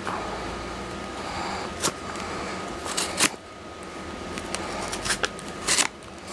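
Handling and opening a mail package: scattered rustles, clicks and knocks, with a pair of sharp ones about three seconds in and a cluster near the end.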